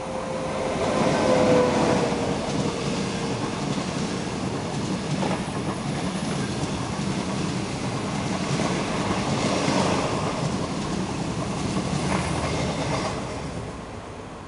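SS8 electric locomotive passing close by with a thin whine that dips slightly in pitch. A rake of 25Z passenger coaches follows, rumbling past with a few sharp wheel clacks over the rail joints. The noise falls away near the end as the last coach passes.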